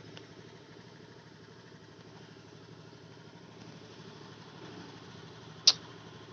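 Steady low mechanical hum, with one sharp, loud click about five and a half seconds in.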